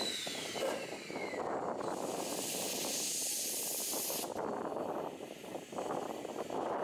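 JNR Class C11 steam locomotive letting off steam: a loud hiss starts about two seconds in and cuts off sharply about two and a half seconds later, over a steady lower rushing noise. A thin tone glides down in pitch at the start.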